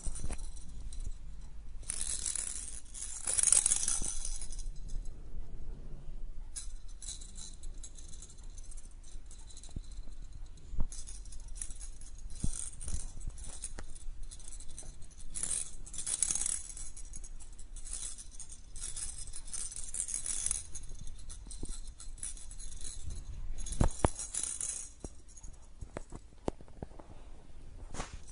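A small plastic rattle toy jingling in irregular bursts as a kitten bats and chews it, with scattered sharp clicks.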